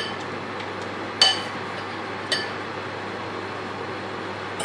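Pot of spaghetti at a rolling boil on a gas burner, giving a steady bubbling hiss. Sharp ringing clinks cut in about a second in, again about two seconds in, and loudest at the very end.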